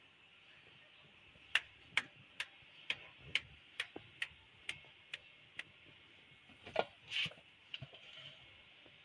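A run of about ten sharp, evenly spaced clicks, a little over two a second, starting about a second and a half in, then a few louder knocks near the end.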